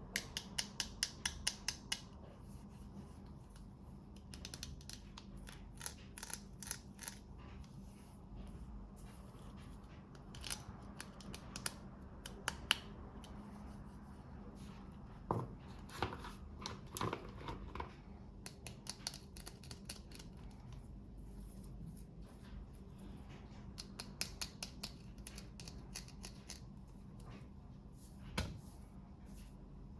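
Scissors snipping through packaging in quick runs of sharp clicks, with a few louder crackles of the wrapping being handled about halfway through.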